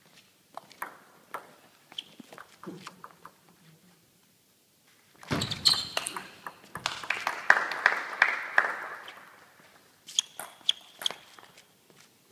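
Table tennis ball clicking sharply as it bounces on the table and is struck by the bats, in scattered clicks at first, then a louder, busier stretch in the middle and another run of clicks near the end.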